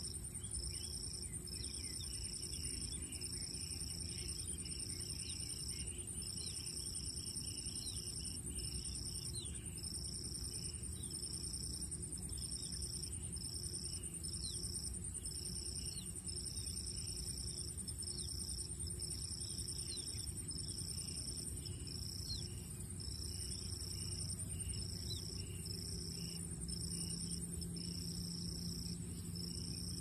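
Insects chirring: a high, unbroken drone with a second trill that starts and stops about once a second, over a low background rumble. Faint short chirps are scattered through.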